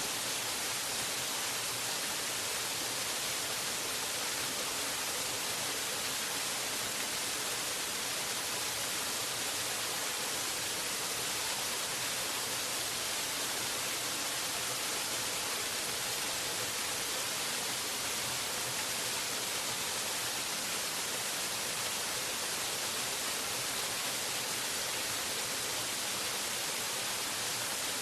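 Waterfall: water falling in a steady, unchanging rush.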